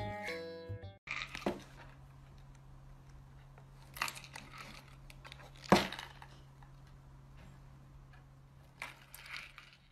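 A cat pawing and nosing at a small paper box: light crinkling and a few sharp taps and scrapes, the loudest about six seconds in, over a steady low hum.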